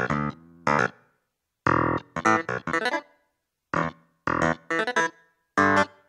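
Korg M50 synthesizer playing its "Clav Register AC" clavinet patch: short, detached chords in quick groups, with brief silences between the groups.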